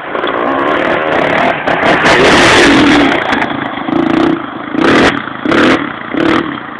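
Motocross bike engine revving hard, its pitch rising and falling, then four short throttle blips in the second half.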